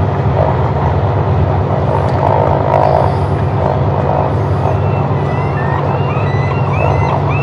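Pratt & Whitney R-985 Wasp Jr. nine-cylinder radial engine of a DHC-2 Beaver floatplane running steadily while the plane taxis on its floats.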